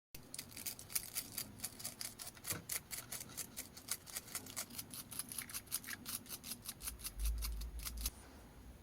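Metal brush scrubbing the oxidized contacts of a radio band-select switch in rapid scratchy strokes, about five a second. A low rumble comes in just before the strokes stop near the end.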